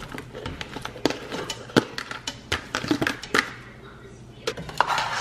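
Raw shell-on shrimp dropped by hand from a plastic bowl into a stainless steel pot of thick butter sauce: a run of wet plops and splats with sharp knocks, uneven and spread throughout.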